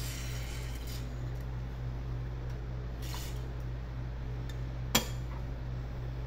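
Short hisses of an aerosol spray can, then a single sharp metallic clink about five seconds in, over a steady low hum.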